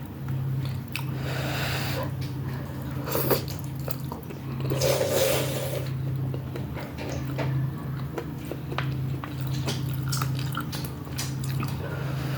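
Close eating sounds from a bowl of Shanghai noodles with beef: wet chewing and mouth clicks, with a longer, louder noisy stretch about five seconds in. A steady low hum runs underneath.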